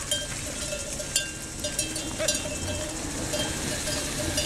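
Bells on livestock being herded along the road, clinking irregularly about twice a second with a light metallic ring.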